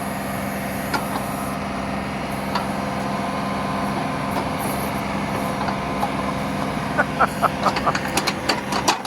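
John Deere 2038R compact tractor's three-cylinder diesel running steadily while working the 270B backhoe on a tree stump root. A quick run of sharp knocks comes near the end.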